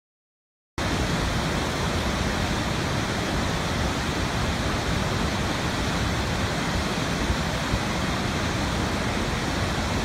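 Waterfall: a steady, loud rush of falling water that starts abruptly about a second in.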